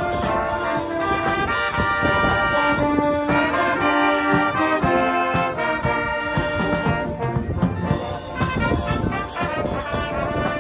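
A wind band playing live: held brass and saxophone notes, with tubas, trumpets and saxophones, over a drum-kit beat.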